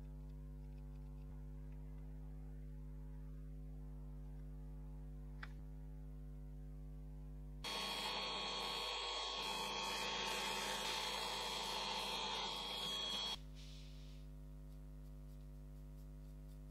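A steady hum, then about eight seconds in a drill bit in a small milling machine bites into an aluminium block for about six seconds: a noisy cutting sound with a high steady whine. It stops abruptly and the hum returns.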